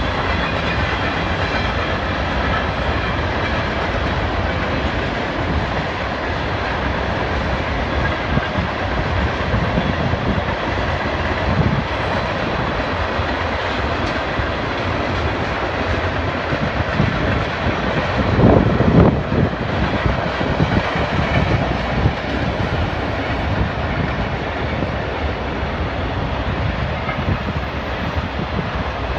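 Freight train cars rolling past: the steady noise and clatter of steel wheels on rail, swelling briefly about two-thirds of the way through.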